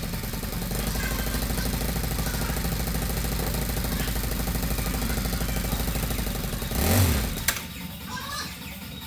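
Honda Grand motorcycle's single-cylinder four-stroke engine idling steadily on a test run after its cylinder head overhaul, given a short rev about seven seconds in, after which the engine sound cuts off with a click.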